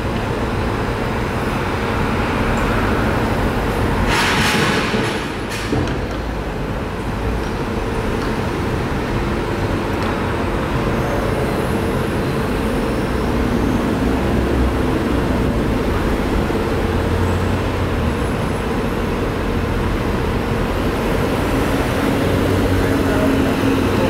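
Steady rumble of city traffic, with a short burst of hiss about four seconds in.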